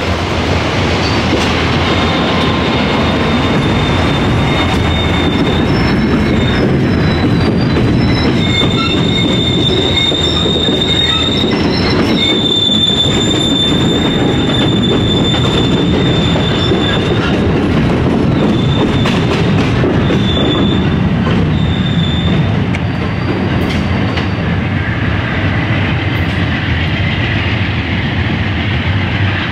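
Amtrak Superliner bilevel passenger cars rolling past close by: a steady rumble of wheels on rail with high wheel squeal coming and going. The squeal stops about two-thirds of the way through, and the sound eases a little as the last car pulls away.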